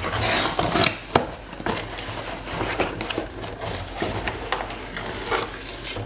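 Cardboard scraping and rubbing as a boxed kitchen scale is slid out of a corrugated shipping box, with a string of small knocks and crinkles and one sharp click about a second in.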